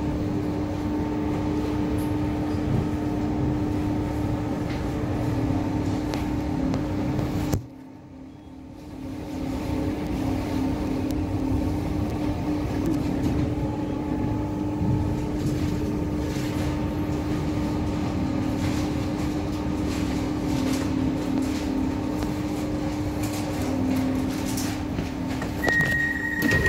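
Electric hum and rumble inside an Irish Rail 8520 class DART electric train as it runs along, with steady humming tones. The sound drops out abruptly for about two seconds about eight seconds in, then returns. Near the end a steady high tone begins.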